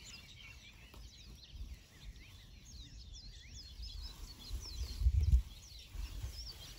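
Many small birds chirping and twittering in quick, short notes, over a low rumble of wind on the microphone that gusts loudest about five seconds in.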